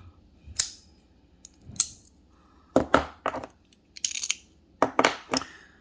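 Small metal utility knives being handled: a series of sharp metallic clicks and clinks, some single and some in quick clusters of two or three.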